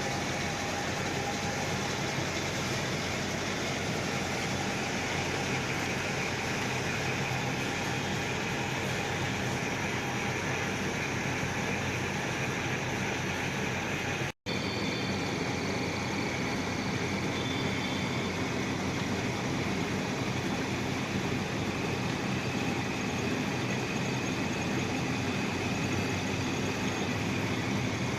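Metal lathe running steadily with the cutting tool facing the end of a workpiece, an even machine noise. It drops out for an instant about halfway through, then carries on the same.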